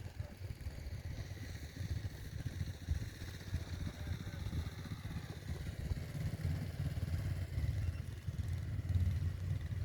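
A vehicle running, heard as a continuous, uneven low rumble.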